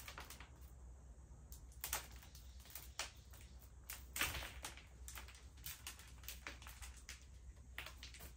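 Hands working potting soil and small plants, making scattered light rustles and soft taps at an irregular pace.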